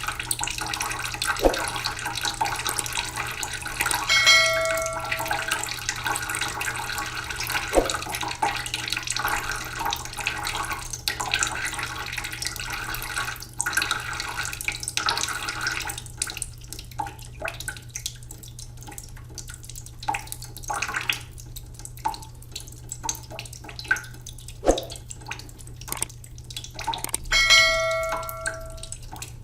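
Waterfall: falling water splashing steadily, thinning after about halfway into scattered splashes and drips. A short bell-like ring sounds twice, about four seconds in and near the end.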